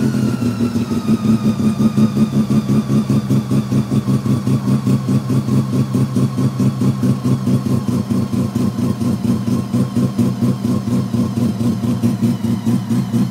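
Bridgeported Mazda 13B two-rotor rotary engine heard from the driver's seat. Its revs fall away over the first few seconds, then it settles into a steady, rhythmic pulsing idle at about 2,000 rpm.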